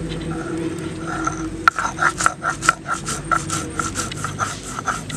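Stone roller scraping back and forth over whole cumin seeds on a flat grinding stone, grinding them to paste. About two seconds in the strokes become a fast, even rhythm of about three a second.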